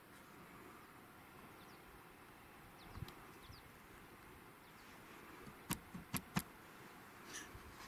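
Quiet outdoor hush with a few faint, short falling bird chirps, then three sharp clicks in quick succession about six seconds in.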